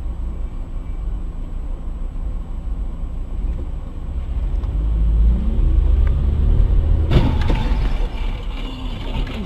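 Low road and engine rumble inside a moving car, growing louder about halfway through. About seven seconds in, a sudden loud crash of cars colliding just ahead is followed by about a second of noisy scraping and debris.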